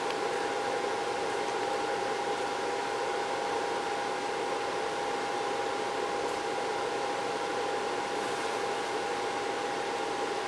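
Steady whir of cooling fans with a constant high-pitched whine, unchanging while a car amplifier runs under test on an amplifier dyno.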